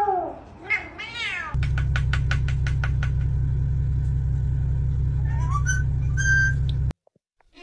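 A cat meowing, two or three rising-and-falling meows in the first second and a half. After a cut, a steady low hum with a quick run of clicks, then short high whistles from a green parakeet near the end, stopping suddenly about a second before the end.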